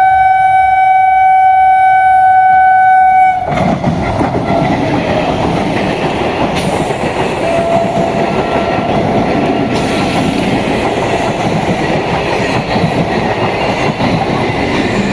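Electric multiple unit (EMU) local train's horn sounding one long, steady blast that cuts off suddenly about three seconds in. After it comes the loud, steady noise of the train running past on the rails.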